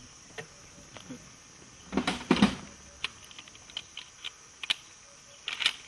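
Light clicks and rustles of a rifle being handled, with a louder rustling clatter about two seconds in, over a steady high insect drone.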